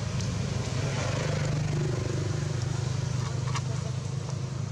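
Steady low hum of a running engine or motor, with a faint click about three and a half seconds in.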